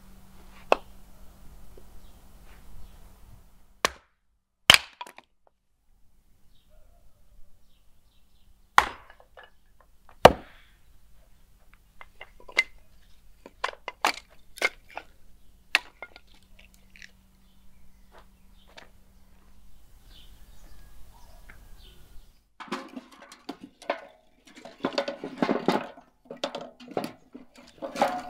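Cooking-preparation noises: scattered sharp clicks and knocks, such as utensils and a knife on a board, then a busier stretch of rapid clatter starting about three-quarters of the way through.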